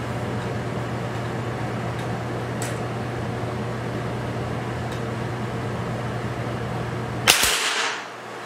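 Steady mechanical hum with a few faint ticks. About seven seconds in comes a sharp, loud crack whose hiss fades within about half a second, and the hum stops at the same moment.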